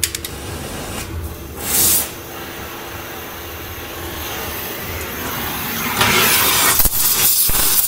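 Gas torch hissing briefly about two seconds in, then burning about six seconds in with a loud steady hiss as it heats the steel frame rail.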